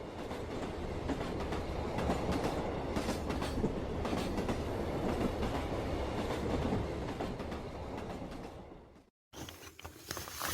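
A passing train: a steady rumble with rail clatter that builds, holds, then fades and cuts off about nine seconds in.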